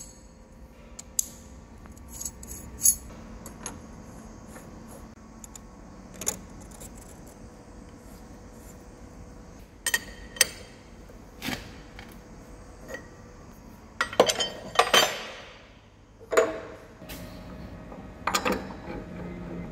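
Scattered metal clicks and clinks of a milling tool being set up: a steel collet pushed into its collet nut, the nut tightened with a hook spanner onto a 5 mm carbide end mill in a tool holder, and the holder fitted into the spindle of a Hafco BM-63VE milling machine. About three-quarters of the way in comes a short cluster of louder scraping clinks.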